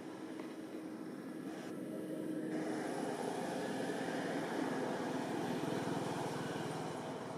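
Distant engine noise: a steady hum that swells about three seconds in and eases off near the end.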